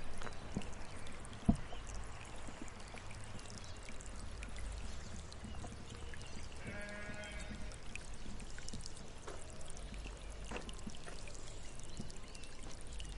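A sheep bleating once about halfway through, a single quavering call lasting about a second, over a steady low background noise with a sharp knock early on.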